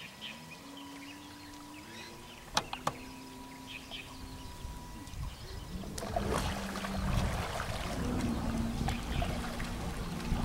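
Radio-controlled model boat's motor running with a faint whine that steps up and down in pitch, broken by two sharp clicks about two and a half seconds in. From about six seconds in it grows louder over a rushing noise of water and wind.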